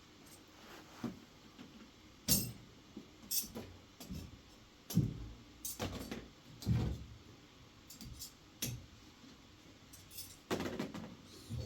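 A series of irregular knocks and clatters, strongest a couple of seconds in, around five seconds and near seven seconds, over a steady low background.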